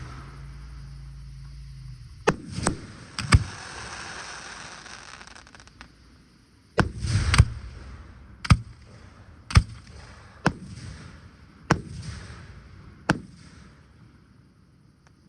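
Fireworks shells bursting in sharp bangs, each trailed by a hiss. A low steady rumble stops just before a quick run of three bangs. Then comes a tight cluster, then five single bangs about a second apart, dying away near the end.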